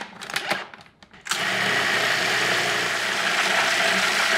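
Food processor's plastic lid clicked and knocked into place, then about a second in the motor starts and runs steadily, pureeing roasted pumpkin flesh.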